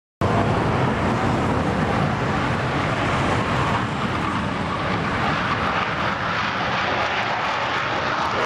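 Panavia Tornado's twin RB199 turbofan engines running at high power, a loud, steady jet noise as the jet makes its take-off run down the runway. The sound drops out for a split second at the very start.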